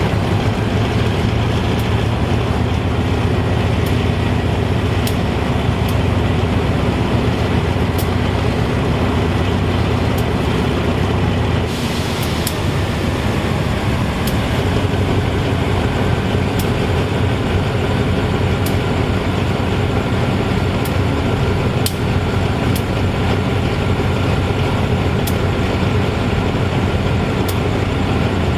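GE-A class diesel-electric locomotive idling with a steady low engine rumble. About twelve seconds in there is a short hiss of released air, and the low rumble then eases a little.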